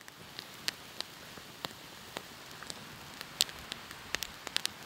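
Small campfire of dry twigs and branches crackling: a steady hiss with irregular sharp pops that come more often near the end.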